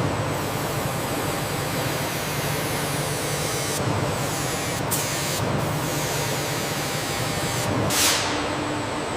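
Steady hissing machine noise with a low hum beneath, typical of workshop ambience. It changes abruptly a few times and has a falling whoosh near the end.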